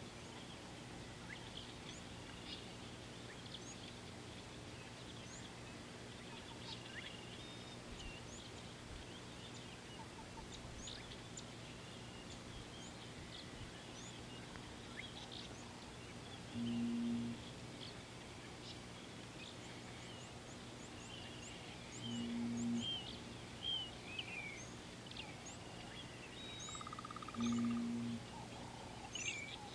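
Wild birds in African bush, many small birds chirping and trilling throughout. Three short low hooting calls sound in the second half, about five seconds apart, louder than the rest, over a faint steady low hum.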